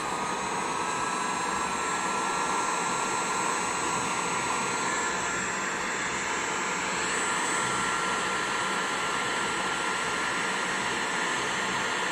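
Electric heat gun running steadily, a rush of blown air with a high motor whine, shrinking heat-shrink tubing down over crimped wire connections.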